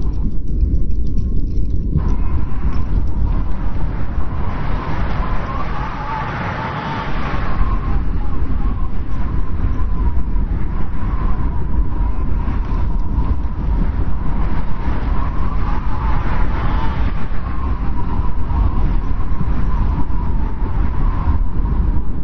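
Strong snowstorm wind blowing with a deep rumble and a steady thin whistle that swells and fades twice, about six seconds in and again about sixteen seconds in.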